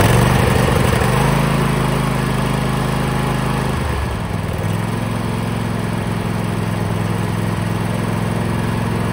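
Briggs and Stratton 24 hp twin-cylinder lawn tractor engine running steadily on full choke, just after catching on a cold start following a head gasket replacement. Its pitch shifts briefly about four seconds in.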